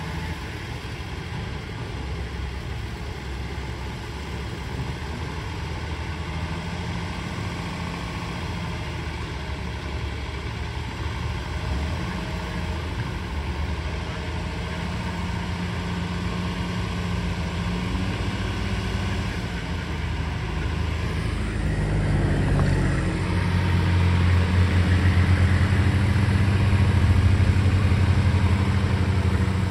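Vintage pickup truck's engine running at low speed as it pulls out, a steady low exhaust rumble that grows louder about three quarters of the way through as the truck turns and drives off.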